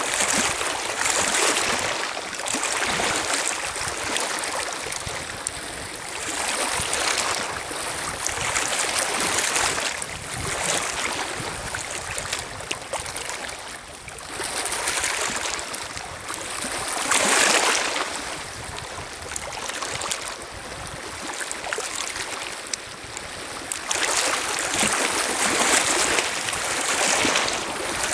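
Small lake waves lapping and washing over a pebble shore, surging in every few seconds, with one louder wash a little past halfway.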